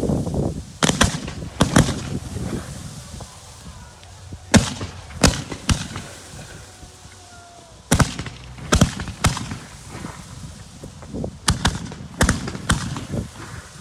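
Fireworks display: aerial shells bursting in about a dozen sharp bangs at irregular intervals, some coming in quick pairs, each with a short echoing tail, and a brief lull about halfway through.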